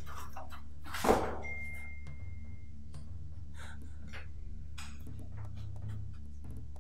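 A steady low hum with scattered faint clicks and one sharp, loud sound about a second in.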